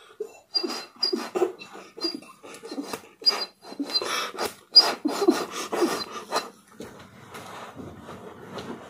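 Loud slurping through a plastic drinking straw from a glass jar: a rapid, irregular run of short rasping sucks with brief whistly squeaks, thinning out near the end.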